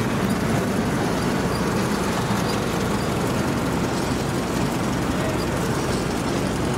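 Heavy rice-field machine's diesel engine running steadily under load.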